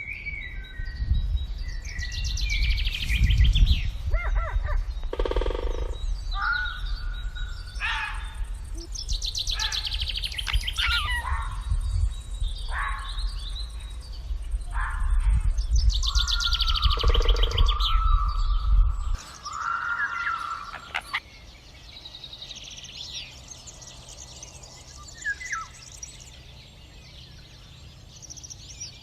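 Several wild birds calling and singing in turn, short chirps, trills and whistled notes, with a low rumble underneath that stops about two-thirds of the way through.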